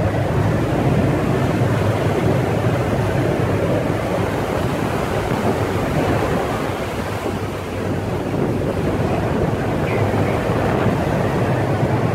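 Sea waves surging and breaking against the platform's steel legs and the boat's hull, with wind buffeting the microphone and a steady low hum underneath.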